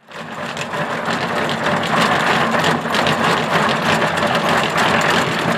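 Dog treadmill running at a steady pace with a continuous mechanical hum and rattle, a Staffordshire Bull Terrier's paws striking the moving belt.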